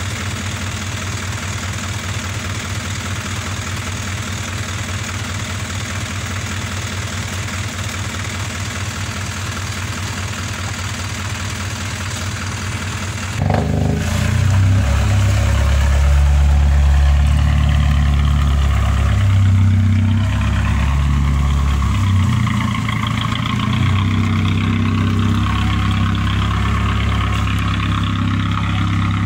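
Diesel engine of a heavily loaded lorry running steadily. About halfway through it turns suddenly louder and deeper, and its speed shifts up and down several times.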